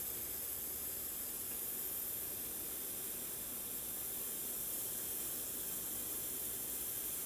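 Steady, even hiss with no distinct events, the recording's background noise; the soldering itself is not heard.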